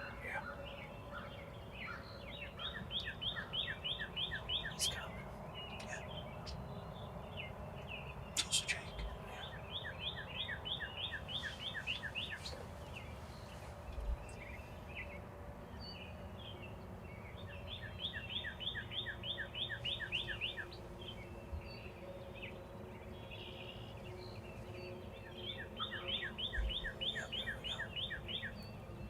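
Songbirds singing at dawn: one bird repeats a quick trill of about ten notes, each song lasting about two seconds and coming back roughly every eight seconds, with other scattered chirps between.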